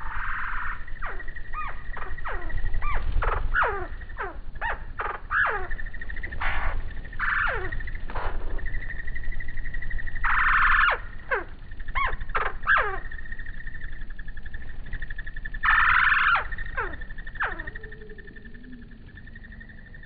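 Hummingbirds at a feeder calling in a string of quick downward-sliding chirps, broken by a few short buzzy bursts, over a faint steady high tone. The calls die away near the end.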